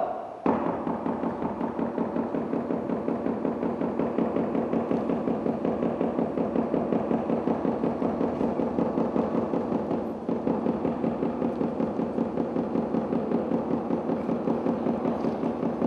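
Beijing opera percussion accompaniment playing a fast, even beat of about five to six strokes a second over a steady ringing.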